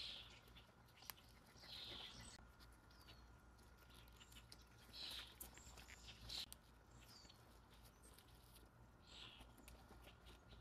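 Faint soft rustles and snaps of daylily stems and leaves being handled and picked, about five short bursts, with a few brief high bird chirps in between.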